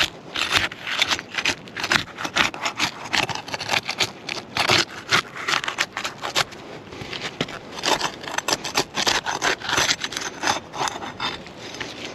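Rapid, irregular scraping and rasping as a tool is worked under asphalt 3-tab shingles to break their seal strips, the granule-covered shingles grinding against each other.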